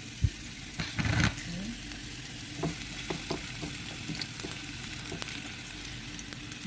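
Chopped onion sizzling in hot oil in a nonstick frying pan, with a wooden spatula knocking and scraping against the pan as it is stirred. A sharp knock comes just after the start and a louder stretch of stirring about a second in, then scattered taps over the steady sizzle.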